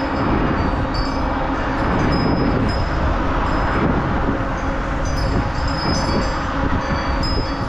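Steady wind and road noise on a GoPro during a bicycle ride, with faint high ticks and rattles from the bike.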